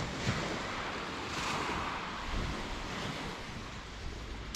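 Small waves washing in on a calm sea, one wave rushing up about one and a half seconds in, with a low rumble of wind on the microphone.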